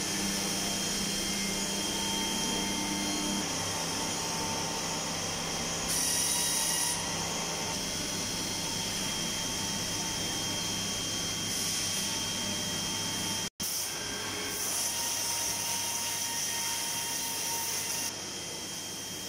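CNC turning-milling machines running, a steady hum with a high hiss of coolant spraying inside the enclosure and a thin steady whine. The hiss swells briefly about six seconds in and again from about fifteen to eighteen seconds, and the sound cuts out for an instant about thirteen and a half seconds in.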